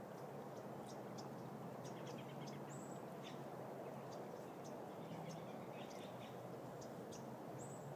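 Faint outdoor ambience: a steady low hiss with scattered small ticks and two brief high chirps, one about three seconds in and one near the end.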